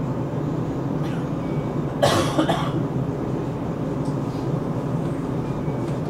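Rotterdam metro train running, a steady low rumble inside the carriage. About two seconds in, a person coughs briefly, twice in quick succession, louder than the train.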